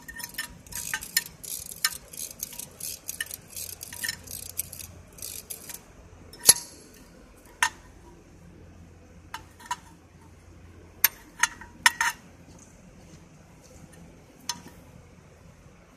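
Pliers gripping, bending and twisting safety wire against propeller mounting bolts, locking the bolts: a quick run of small metallic clicks and scrapes for about six seconds, then a few separate sharp clinks.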